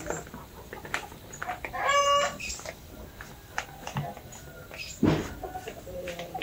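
Chickens clucking and calling, with one short, clear call about two seconds in and a short louder sound a little after five seconds in.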